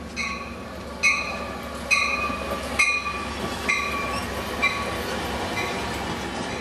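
Amtrak California Surfliner train passing slowly through a station, its bell ringing about once a second over the steady rumble of the bi-level cars. The bell strikes are loudest in the first few seconds and fade as the cab car moves past.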